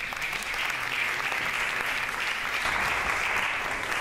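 Audience applauding: many people clapping at once in a steady stream.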